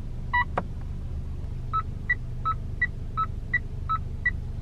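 Mitsubishi Xpander's selectable turn-signal indicator sound, setting 2: an even tick-tock in two alternating pitches, about three clicks a second. Before it starts, a short two-tone beep and a click as the setting is changed on the dashboard display, over a low steady hum.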